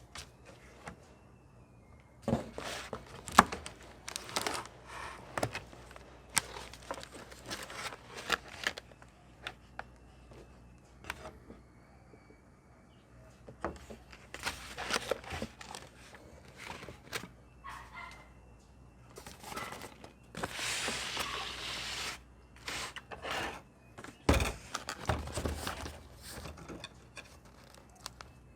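Packaging being handled and unpacked: rustling and crinkling with scattered taps and knocks, a longer rustle about twenty seconds in, and a heavy thump shortly after.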